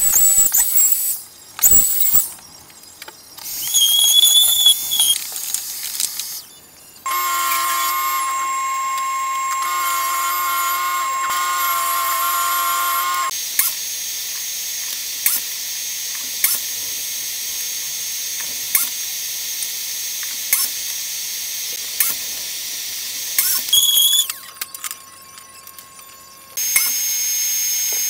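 Electric woodworking power tools running in a string of short takes: a small router's high-pitched whine, then a compound miter saw's motor running steadily. The whine stops and starts again near the end.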